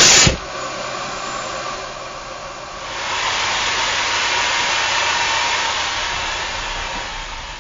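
Vacuum cleaner running, a steady rushing noise with a faint whine, after a loud burst of noise right at the start. It grows louder about three seconds in and eases off near the end.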